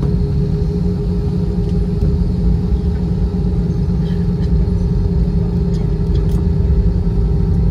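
Cabin noise of an Airbus A320-216 rolling on the ground after landing: a steady low rumble from the idling CFM56 engines and the airframe, with a steady hum over it.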